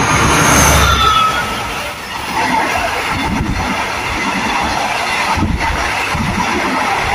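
A diesel-electric passenger train passing close by. The locomotive's engine rumbles loudest in the first second or so, with a brief high squeal. Then the carriages roll past with steady wheel noise and an occasional clack of wheels over rail joints.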